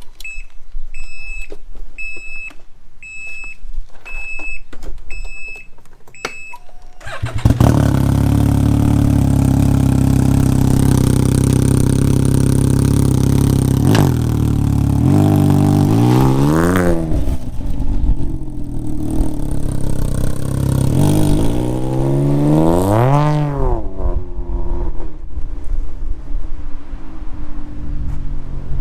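A repeating electronic beep, about one and a half a second. About seven seconds in, the Can-Am Ryker's Rotax 900 ACE three-cylinder starts through a prototype BKD aftermarket exhaust and runs loud and steady. It then revs up and down twice as it drives past, and is quieter and fading near the end.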